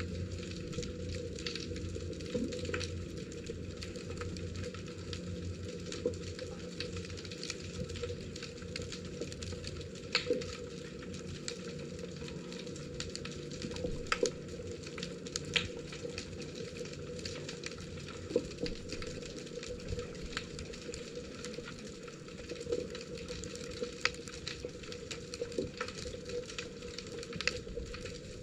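Underwater ambience heard by a camera in its housing: a steady hiss with irregular sharp crackling clicks throughout, over a low hum that is stronger for the first ten seconds or so.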